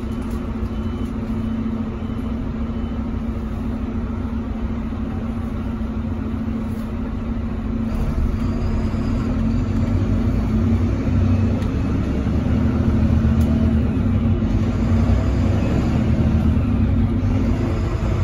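Volvo B9RLE city bus heard from inside the rear of the passenger cabin: the engine runs with a steady low hum, growing louder about eight seconds in, when a faint high whine joins it.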